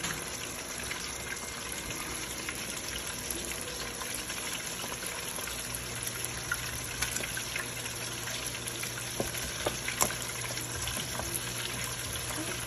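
Hot oil in a deep pot sizzling and bubbling steadily as lumpia (Filipino spring rolls) deep-fry at about 350 °F, with a few light clicks a little before the end.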